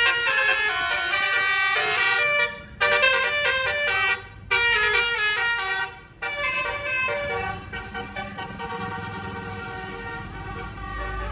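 Bus telolet (basuri) multi-tone horn playing a quick melody of changing notes, in several phrases with short breaks between them. The notes fade after about seven seconds over the low sound of a vehicle engine.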